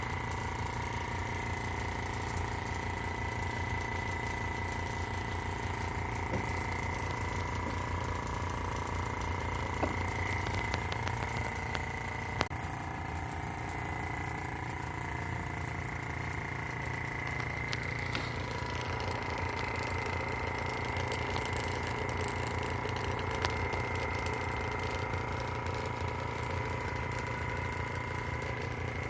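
Vacuum pump running steadily with a fast, even chugging and a steady whine, pulling methylamine gas off under vacuum. A few faint ticks sound over it, the sharpest about twelve seconds in.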